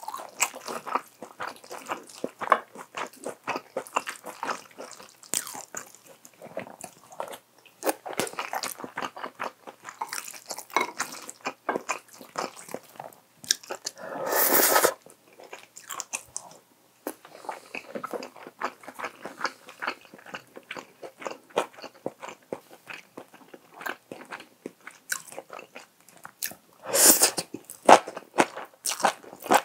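Close-miked eating sounds: wet chewing and many small mouth clicks from a mouthful of spicy stir-fried tofu and rice. There is a longer, louder slurp about halfway, and another near the end as a strand of stir-fried seaweed stem is sucked into the mouth.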